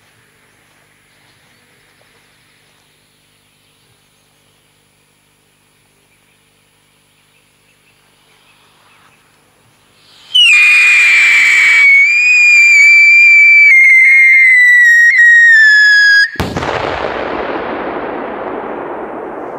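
Polish firecracker with a whistle and a bang: its fuse hisses faintly, then about ten seconds in a loud, shrill whistle sounds for around six seconds, its pitch slowly sagging, and it ends in one very loud bang that echoes away.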